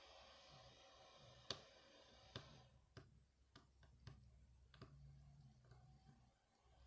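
Faint, scattered clicks and ticks of a small screwdriver and tweezers against a phone's screws and plastic frame while a tiny screw is backed out and picked up. About six clicks, the sharpest about a second and a half in.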